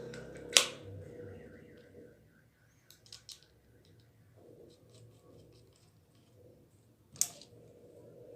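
Spinning fishing reel being handled after reassembly: a sharp click, a brief run of quick faint ticks, a few small clicks, and another sharp click near the end.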